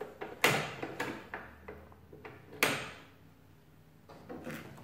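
Operating handle of a 1916 Burroughs Class 3 adding machine being pulled, its old mechanism giving a series of metallic clacks and clicks, with two sharper knocks about half a second and two and a half seconds in.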